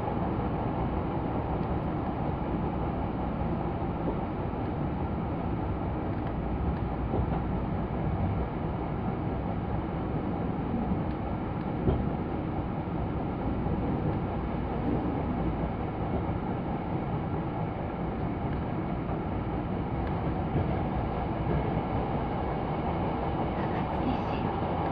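Hankyu Kyoto Line electric train running at speed, heard from inside the passenger car: a steady rumble of wheels on rail, with one brief louder knock about halfway through.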